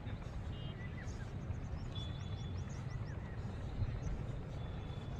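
Open-air ambience: a steady low rumble like wind on the microphone, with birds chirping in short high calls and a brief low bump near the end.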